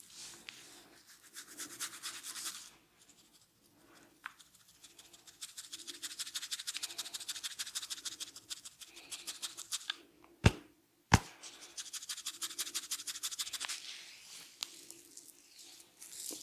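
Hands rubbing and scrubbing the hair and scalp in quick, rhythmic strokes during a head massage. Two sharp cracks come about ten and eleven seconds in, half a second apart.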